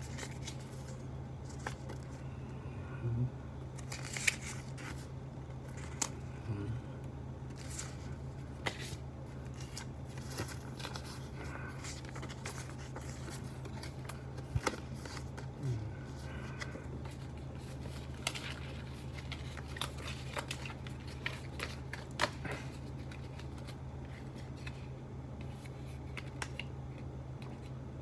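Paper and card packaging inserts from a smartphone box being handled: scattered light clicks, snaps and rustles. A steady low hum sits underneath.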